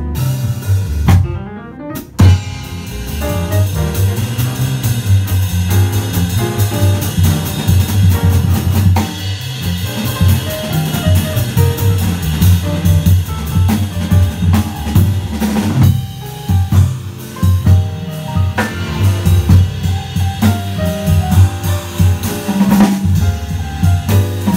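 Jazz piano trio playing: acoustic grand piano, upright double bass and drum kit with busy cymbal and snare work. After a short dip in level, a sharp loud hit about two seconds in brings the full band back in.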